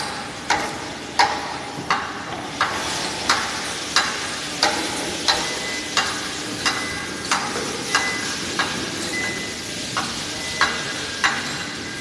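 Concrete floor grinding machines running as a steady hiss, with sharp knocks on top at an even pace of about three every two seconds.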